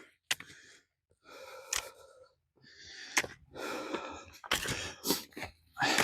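A man breathing hard in and out while climbing a steep hill: about six heavy, breathy gasps, with a few sharp clicks among them.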